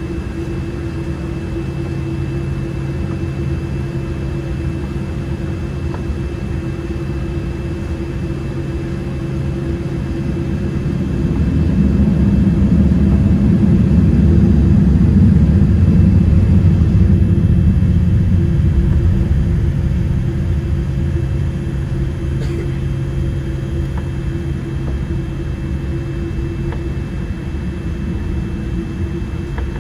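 Boeing 787-8 cabin noise during taxi: a steady low rumble with a steady hum. The rumble swells louder for several seconds around the middle, then settles back.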